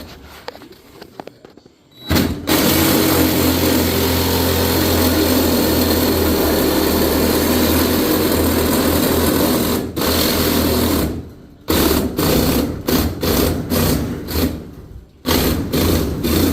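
Power reciprocating saw cutting through the sheet-metal floor of a truck cab. It starts about two seconds in and runs steadily for about eight seconds, then cuts in short stop-start bursts.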